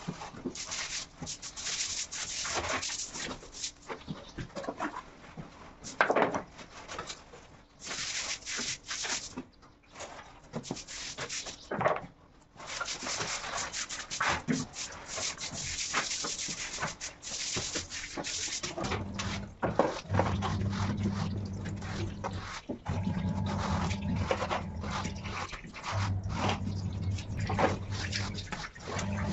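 Stiff brush scrubbing a wet terrazzo floor in rough, rasping strokes. In the last third a low hum sets in, coming and going in stretches of two to three seconds.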